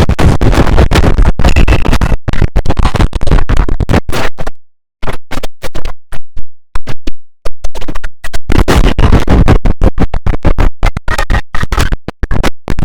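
Loud, heavily distorted electronic audio chopped into rapid stuttering cuts, like record scratching, with a brief silent break about five seconds in.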